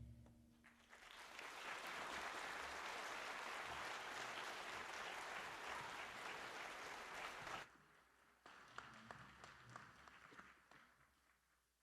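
Audience applauding after the band's closing chord, the clapping cutting off suddenly about seven and a half seconds in; a few scattered claps follow and die away.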